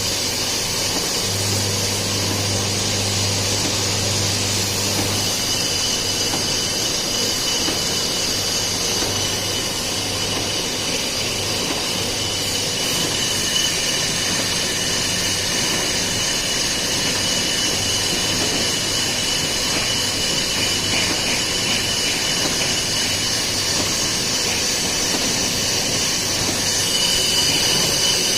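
Industrial mill machinery running steadily: a continuous hiss and whine with a steady high tone, a low hum during the first few seconds, and slightly louder near the end.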